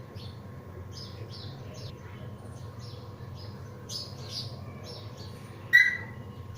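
Pet parrot chirping, a run of short high chirps, then one much louder call near the end. A steady low hum runs underneath.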